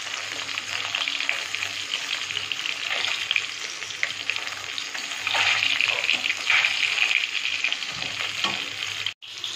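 Foli (featherback) fish pieces shallow-frying in hot oil in a kadai, a steady sizzle and crackle that thickens about halfway through, with a metal spatula scraping and tapping the pan as the pieces are turned.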